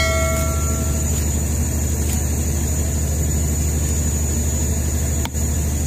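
Fishing boat's engine running steadily, an even low drone with a fine regular pulse.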